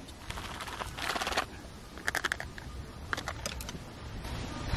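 Wooden chopsticks tapping and scraping as sticky natto is stirred in its plastic tray and scraped into a stainless steel bowl. The clicks come in several short bursts.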